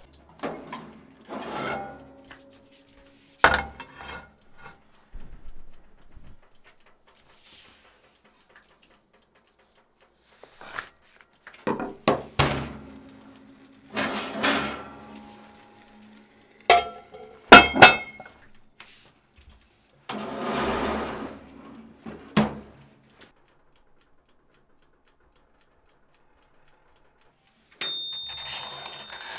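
Cast-iron combo cooker being handled: separate clanks, clinks and short scrapes with quiet gaps between. A steady high-pitched tone starts near the end.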